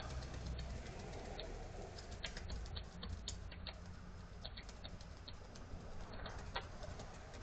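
Outdoor ambience: a steady low rumble with many short chirps and ticks scattered through it.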